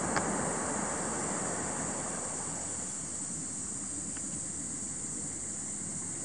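Steady outdoor background noise: a high, even drone of insects over a low rushing noise that eases off slightly.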